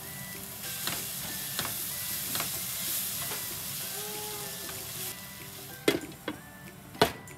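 Food sizzling in a frying pan as it is stirred, with sharp knocks of a utensil against the pan. The sizzle fades about five seconds in, and two louder knocks come near the end. Soft background music plays underneath.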